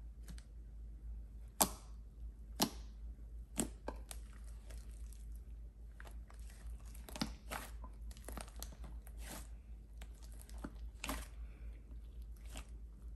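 Thick purple slime being stretched, squeezed and kneaded by hand: sticky crackling and squishing with irregular sharp pops, the loudest about one and a half and two and a half seconds in.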